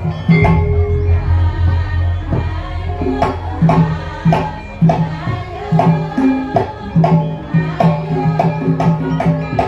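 Traditional percussion music of the kind that accompanies a pencak silat routine: sharp drum strikes about twice a second over sustained low pitched notes, a steady beat.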